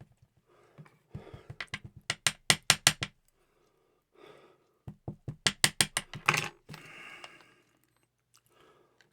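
Small metal parts of a pin-tumbler lock clicking and tapping as the lock is taken apart: two quick runs of sharp clicks, the first about a second in, the second about five seconds in.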